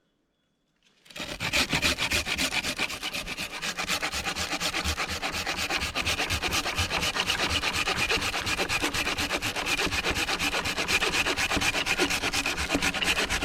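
Hand saw rasping through wood in fast, even strokes that start about a second in.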